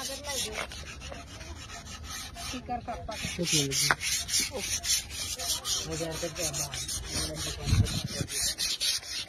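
Quick, even rubbing strokes against the wood of a cricket bat, about four or five a second, rasping like sanding. A dull low bump near the end.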